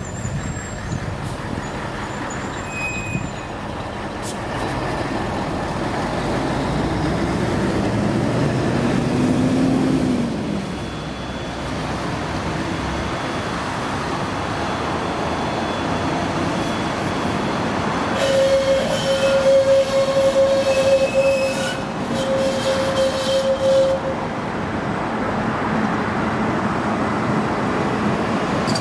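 Tatra KT4 articulated tram approaching and running past on its rails, a steady rumble of wheels and motors, with a high steady wheel squeal on the curve for several seconds about two-thirds of the way through.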